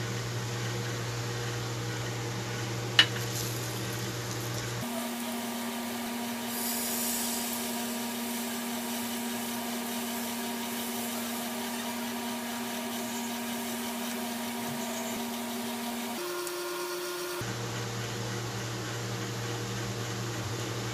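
Steady electrical hum with faint background noise. The hum changes pitch abruptly about five seconds in and again near the end. A single sharp click sounds about three seconds in.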